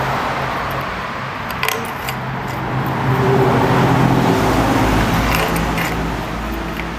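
A few light metallic clinks of small metal engine parts being handled, over a steady background hum and a low rumble of road traffic that swells about halfway through.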